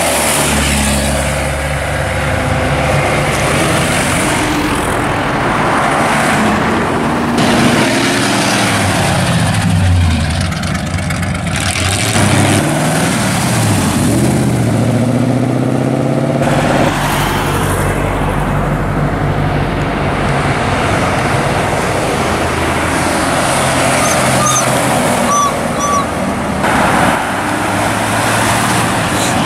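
A string of vintage cars and hot rods driving past one after another, their engines running and revving as they pull away, the engine note rising and falling with each car.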